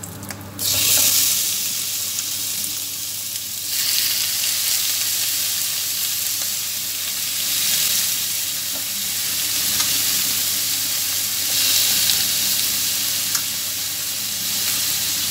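Small pieces of raw veal hit a hot frying pan greased with melted lamb fat and break into a sizzle about half a second in; more meat goes in about four seconds in and the frying grows louder. It then sizzles steadily while the meat is stirred with a silicone spatula, searing the meat.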